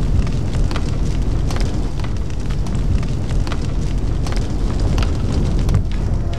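Large fire burning with a steady low rumble and scattered sharp crackles and pops.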